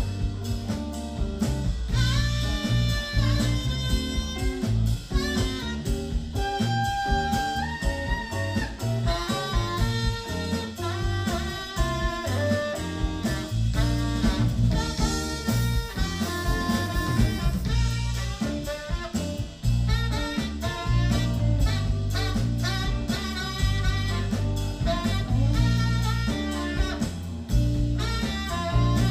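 Live band playing an instrumental passage: saxophone lead melody over electric guitar, electric bass and drum kit.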